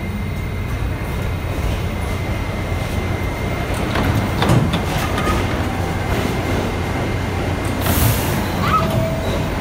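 R68A subway train standing at the platform, its equipment giving a steady low rumble, with a few clicks about four seconds in and a short burst of air hiss about eight seconds in.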